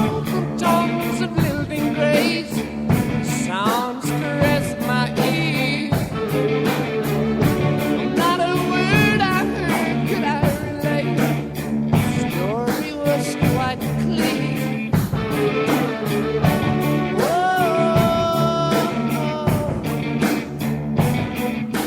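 Rock music soundtrack with a steady beat and bending, sliding melodic lines.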